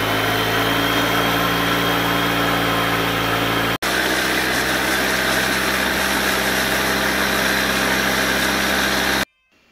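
Long-tail boat engine running steadily while the boat is under way, a constant drone. It has a momentary break about four seconds in and cuts off suddenly near the end.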